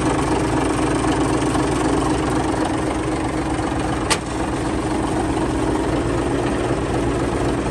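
Caterpillar D8K bulldozer's six-cylinder diesel engine idling steadily, with one sharp click about four seconds in.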